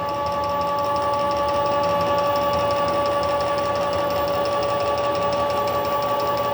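A stepper motor on the PM-727M CNC mill driving an axis at a steady jog speed, giving a steady multi-tone whine with a fast, even ticking. It stops abruptly near the end.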